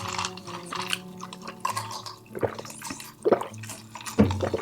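Close-miked wet mouth sounds of eating: moist chewing with sharp smacks and clicks, a few times over the few seconds.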